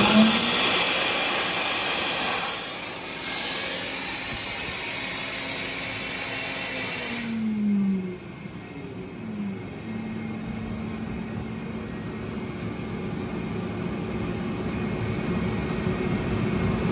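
Quincy QGV 50 rotary screw air compressor running, with compressed air hissing loudly out of its open, unconnected outlet until the hiss cuts off suddenly about seven seconds in as the outlet is capped. After that the compressor runs on with a steady hum, its pitch dropping a couple of times before settling, as it builds pressure toward its set point.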